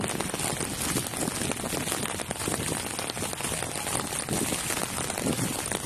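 Rain falling: a steady, even hiss scattered with many small drop ticks.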